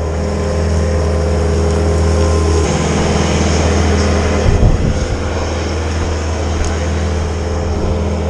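Chainsaw running at full throttle and cutting, a steady high engine drone that shifts pitch slightly a couple of seconds in, with a brief knock near the middle; this is the back cut on a back-leaning tree, made first so wedges can be set.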